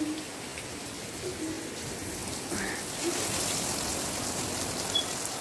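Heavy rain falling steadily, an even hiss of drops that grows a little stronger about three seconds in.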